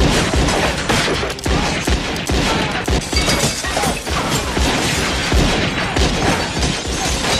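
A rapid barrage of gunshots mixed with window glass shattering, a dense run of sharp cracks and crashes several times a second, as in a movie gunfight sound mix.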